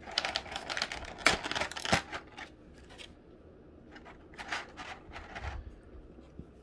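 Handling noise: a quick cluster of sharp clicks and rustling, loudest about a second and two seconds in, then a few softer rustles later on.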